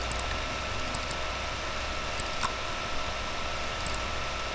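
Steady background hiss and low hum, with faint pairs of small clicks about every second and a half.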